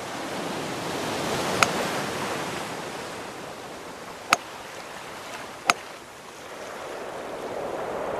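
Steady rushing noise like wind or surf, broken by three sharp clicks, about one and a half, four and a quarter and five and three-quarter seconds in; the noise swells and deepens near the end.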